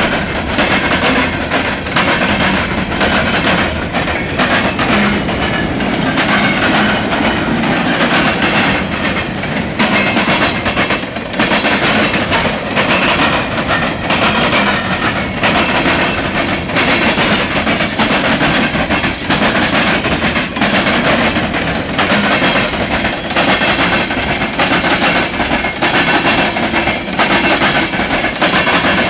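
Norfolk Southern freight train cars rolling past, their wheels clicking steadily and rapidly over the rail joints.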